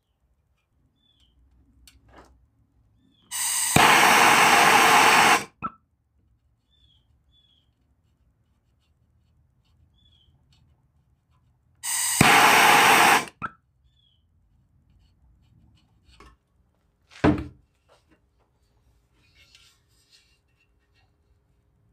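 Two loud bursts of hissing spray from a pressurised nozzle, each about two seconds long, the first beginning with a softer hiss. A single sharp knock comes near the end.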